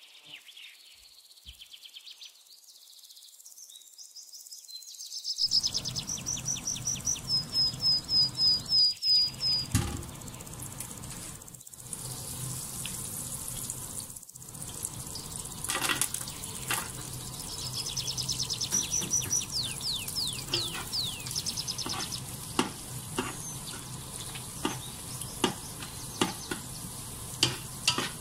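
After a quiet first few seconds, butter and oil sizzle in a pot, and then chopped garlic fries in it, with a spatula clicking and scraping against the pan in the second half. A bird's fast run of high chirps comes through twice, loudest a few seconds in and again past the middle.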